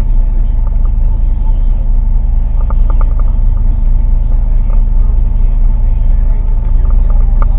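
Boat engine running steadily at a constant speed, a loud low hum with no change in pitch.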